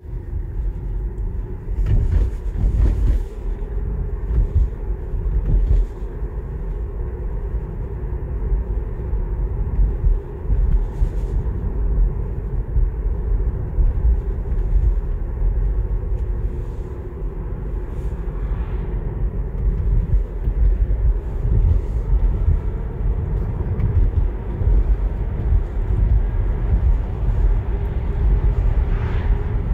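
Road and tyre noise inside the cabin of a Tesla Model 3 electric car driving on a country road: a steady low rumble with no engine sound, broken by a few brief thumps. Near the end an oncoming car passes.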